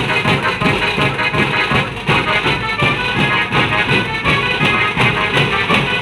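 Indian band-party music: a Casio keyboard melody with sustained reedy tones over a fast, steady drum beat, played loud through a sound system.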